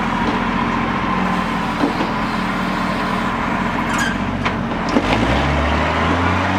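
A large engine running steadily, with a few sharp metallic clanks in the middle and the engine speeding up near the end.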